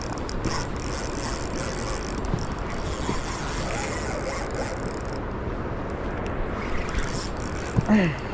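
Fast river current rushing steadily, with the mechanical whir and clicking of a spinning reel as a hooked trout pulls against it.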